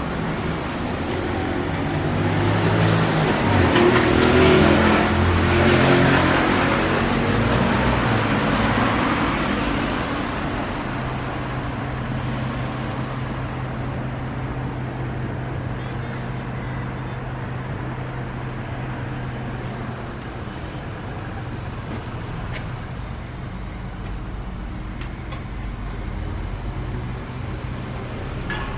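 Street traffic: a motor vehicle passes, loudest around four to six seconds in and fading by about ten seconds, followed by a steady low hum over a background of road noise.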